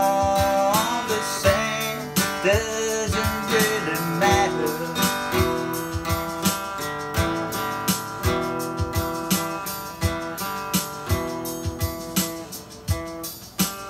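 Acoustic guitar strummed in a steady rhythm, with a voice holding a last sung note at the start; the strumming then carries on alone and grows quieter toward the end.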